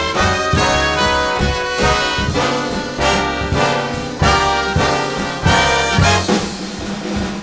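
Swing-style jazz band music, with a brass section playing a moving melody line of short sustained notes.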